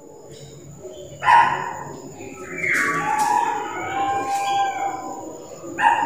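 Pied butcherbird singing: a phrase of clear whistled notes starting about a second in, some sliding in pitch, over a low background hiss.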